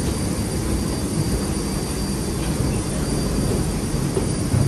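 Steady running noise of a moving vehicle, a low rumble and hiss with a faint high-pitched whine held steady over it.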